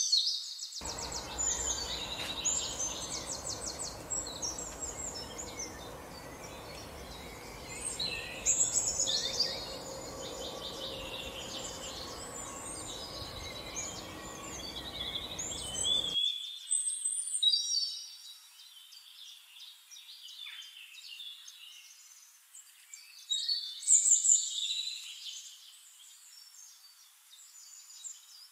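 Songbirds singing: repeated high chirps and fast trills, the loudest bursts near the start, about 9 s in and about 24 s in. A low steady hiss underneath stops abruptly about halfway through.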